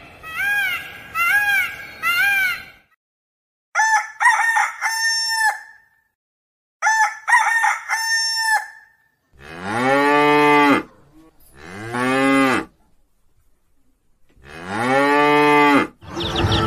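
A string of farm-animal calls: a few short rising-and-falling calls at the start, then a rooster crowing twice, then a cow mooing three times.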